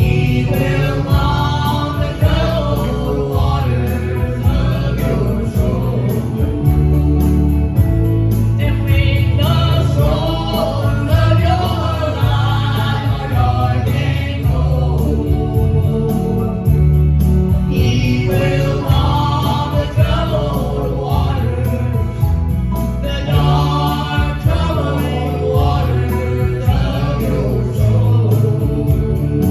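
Gospel song sung by a group of voices over instrumental accompaniment, with a strong, steady bass underneath.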